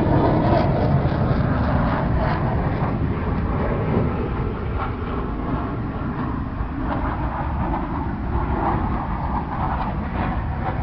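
F/A-18 Hornet fighter jet's engine noise receding after a pass, a deep rumble that slowly fades.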